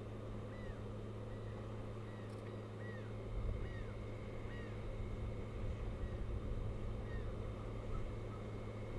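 Osprey calls: a series of about ten short, arched whistled chirps, over a steady low electrical hum. A low rumbling noise joins from about three seconds in.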